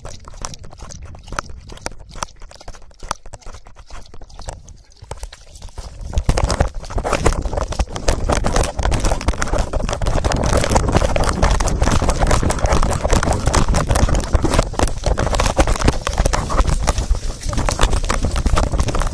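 Rubbing and jostling noise picked up by a phone taped to a Rhodesian ridgeback's collar. At first it is light scratching and clicking as the dog noses in the grass. About six seconds in it turns into loud, dense rushing and thumping as the dog moves off quickly.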